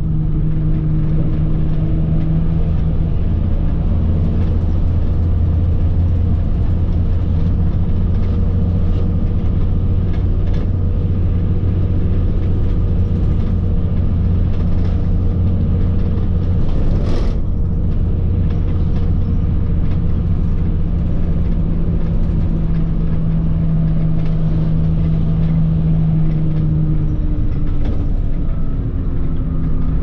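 Bus engine running steadily with a low hum, with occasional clicks and rattles and one sharp knock about seventeen seconds in. The engine note changes and falls near the end.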